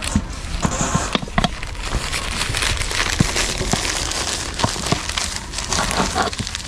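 Sheets of newspaper rustling and crinkling as pieces of large roti flatbread are rolled up in them by hand: a run of small, irregular crackles.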